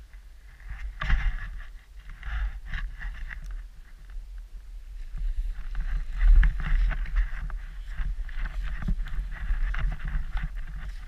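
Powder snow hissing in swishes with each turn of a downhill run, separate swishes at first and near continuous from about halfway, over a steady low rumble of wind on the microphone.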